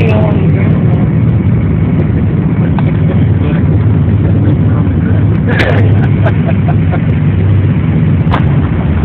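Aircraft cabin noise heard through a phone microphone: a loud, steady engine drone with a low hum, and a couple of short knocks about halfway through and near the end.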